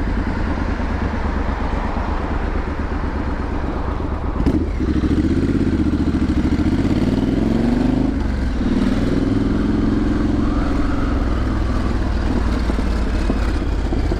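Triumph Street Scrambler 900's 900 cc parallel-twin engine running as the bike is ridden. After a sharp click about four seconds in, the engine pitch rises and falls twice as the bike pulls away and eases off.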